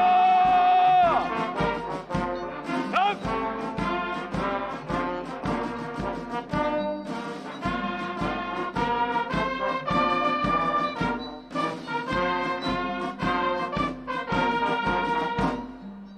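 Brass band music with a steady beat: a long held brass note for about the first second, then rhythmic brass chords over a regular pulse, dropping away near the end.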